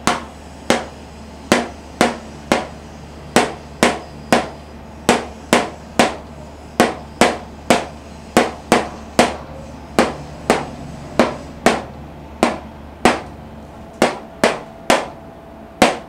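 Marker pen tapping against a whiteboard: a steady run of sharp taps, about two to three a second.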